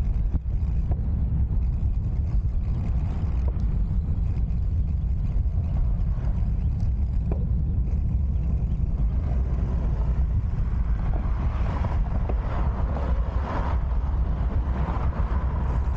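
Wind buffeting the microphone of a cyclist's camera while riding, a steady low rumble, with a broader hiss of road and air noise building in the second half.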